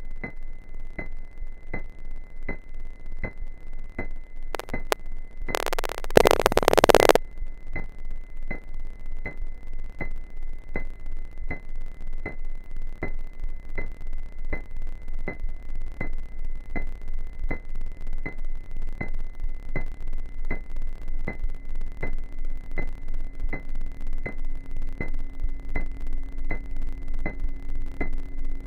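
Electronic sound-design score: a steady pulse of clicks, about two a second, over a high steady tone and a low hum. A loud burst of static cuts in about six seconds in, and a low drone joins in the second half.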